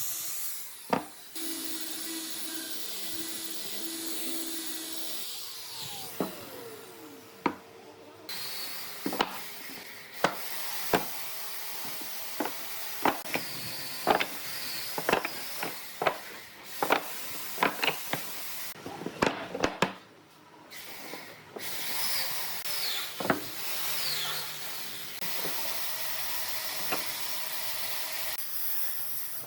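Wood being worked by hand: a run of sharp wooden knocks and taps, most of them between about nine and twenty seconds in, over a steady hiss.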